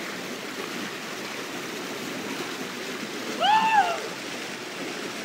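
Stream water rushing steadily down a natural rock water slide, running low. About three and a half seconds in, a single short high voice call rises and falls.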